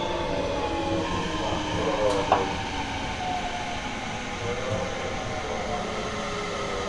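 Seibu 30000 series later-batch electric train with a Hitachi two-level IGBT VVVF inverter, heard from inside a motor car as it slows into a station: inverter and traction-motor whines fall in pitch over the running noise, with a sharp click about two seconds in.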